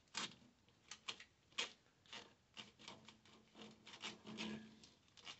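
Black plastic wire loom with red and green wires being fed down into an engine bay, rubbing and scraping against the car's metal in a string of short, faint scrapes and taps.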